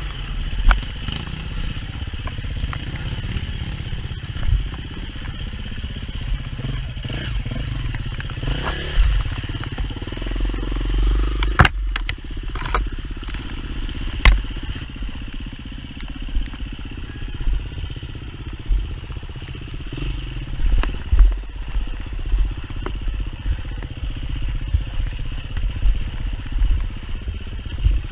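Dirt bike engine running at low, varying revs, with a few sharp knocks and some clatter.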